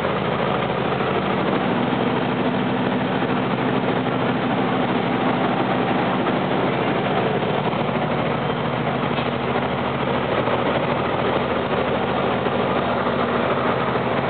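Heavy truck's diesel engine running steadily as it climbs a mountain grade, heard inside the cab as an even hum under constant road noise.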